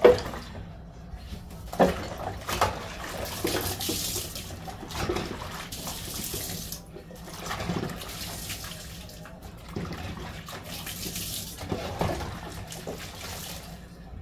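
Water splashing in a stainless-steel kitchen sink as hands wash in it, with a few sharp knocks and clatters against the sink.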